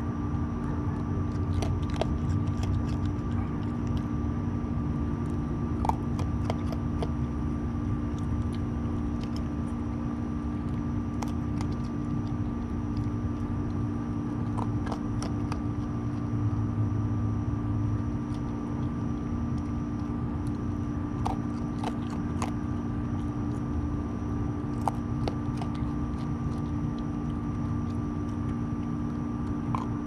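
Raccoon crunching dry food pellets from a metal bowl, with irregular sharp crunches and clicks throughout, over a steady mechanical hum.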